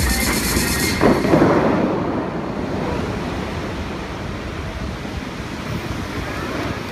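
Bellagio fountain water jets rushing and splashing back into the lake in a steady roar of falling water. It surges loudest about a second in, as the show music cuts off, then slowly fades.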